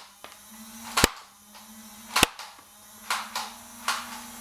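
Toy foam-dart blaster on a tripod firing: two sharp pops about a second and a quarter apart, followed by a few lighter clicks near the end.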